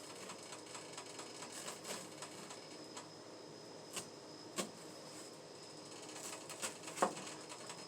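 Knife scoring a halved onion on a cutting board: light scattered taps and clicks of the blade, with a few sharper knocks in the second half.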